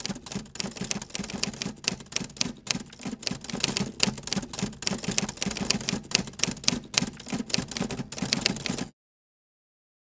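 Typewriter keystroke sound effect: rapid, uneven clacks of keys striking, which stop abruptly about nine seconds in, leaving dead silence.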